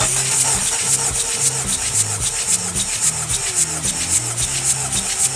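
Chevrolet Z22D1 2.2-litre diesel engine turned over by its starter for a compression test on cylinder four: a steady, fast, rhythmic mechanical cranking sound. The cylinder builds 22 kg/cm² on the gauge.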